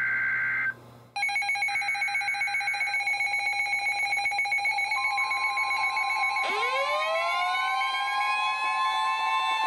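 The last burst of a NOAA Weather Radio SAME alert header, a harsh two-tone data screech, followed about a second in by several weather radio receivers alarming at once with rapidly pulsing electronic beeps in several pitches. About five seconds in, the steady warning alarm tone from the broadcast joins, and about six and a half seconds in a siren-style alarm winds up, rising in pitch.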